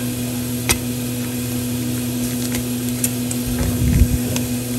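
Steady low machine hum with a few sharp, light clicks and a dull knock about four seconds in, the loudest moment.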